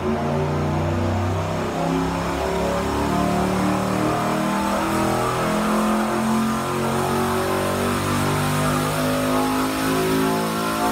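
Twin-turbo 4.8-litre LS V8 running on an engine dyno, loud, its pitch shifting up and down.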